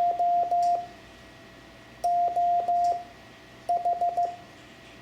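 Morse code (CW) practice tone at one steady pitch, keyed in dots and dashes that spell J, O, H, N, the word "John", with a clear pause between the letters. The last letter starts near the end.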